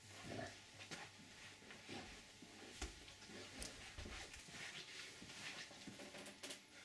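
Faint, irregular soft footsteps and small knocks and rustles of a person moving about indoors, over a low steady hum.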